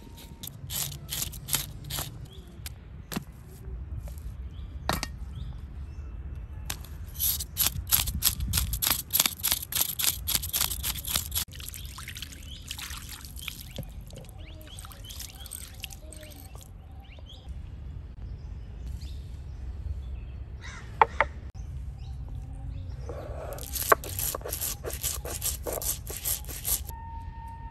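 Dense crackling rattle of mustard seeds poured from a bag onto a stone grinding slab near the end. A similar, louder spell of crackle comes about a third of the way in, with a few single sharp clicks scattered between.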